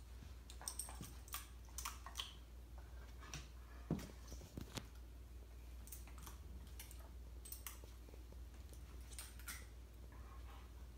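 Metal dog tags on a young German Shepherd's collar, clicking and clinking in irregular light taps as the dog moves about, with a louder knock about four seconds in.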